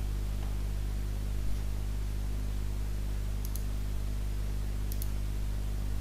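Steady low electrical hum, with a computer mouse clicking faintly twice, each click a quick press-and-release pair, about three and a half and five seconds in.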